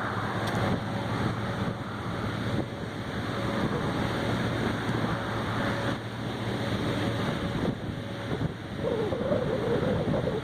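Strong wind rushing and buffeting the microphone, over a steady low hum that stops about eight seconds in; a faint wavering tone rises out of the noise near the end.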